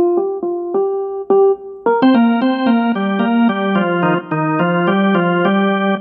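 Instrumental phone ringtone: a melody of short struck notes, one line at first. About two seconds in, a lower accompaniment joins and the tune grows fuller and louder.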